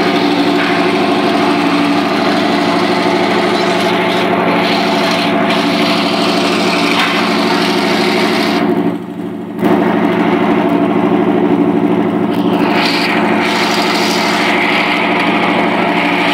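Steady engine drone holding one pitch, with a brief drop in level about nine seconds in.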